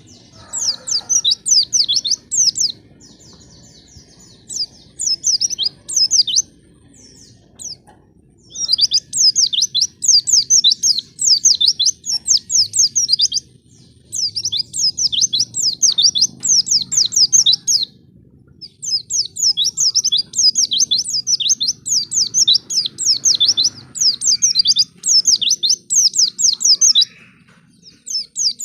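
White-eye (pleci) song: rapid twittering runs of high, steeply sweeping chirps, in phrases of a few seconds broken by short pauses.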